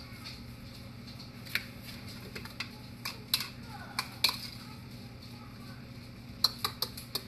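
Scattered light clicks and taps from handling egg roll wrappers and a small plastic bowl on a kitchen counter, over a steady low hum; a quick cluster of clicks comes near the end.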